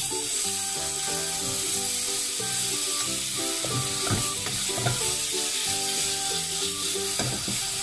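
Tomato halves sizzling in hot oil in a frying pan as they are turned over, with a light background tune playing over it.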